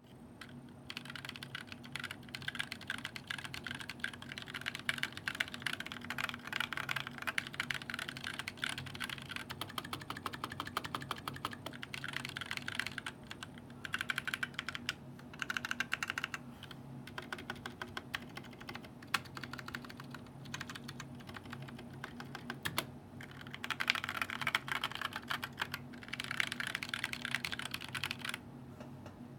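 Typing on a Clueboard mechanical keyboard with lubed 65 g Zealios tactile switches and GMK keycaps: fast runs of key clicks broken by short pauses, with a few single, sharper keystrokes.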